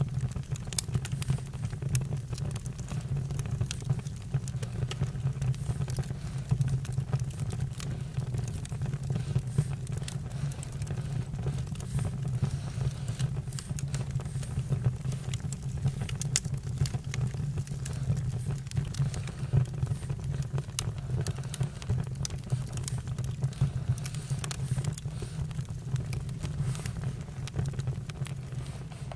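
Campfire crackling, with frequent sharp pops and snaps over a steady low rumble of burning.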